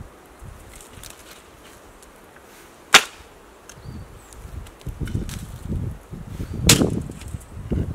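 A spade scooping loose soil and tipping it over an underground oven pit, with scraping and rustling of earth and two sharp cracks, one about three seconds in and another near the end.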